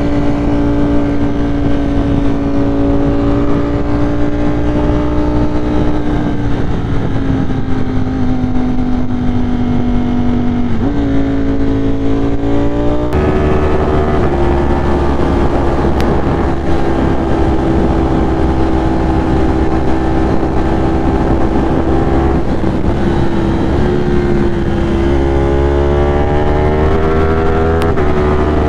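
Ducati Streetfighter V4 motorcycle engine running at cruising speed under a steady rush of wind. The engine note sags slowly, jumps up abruptly about halfway through, then climbs again and drops back just before the end.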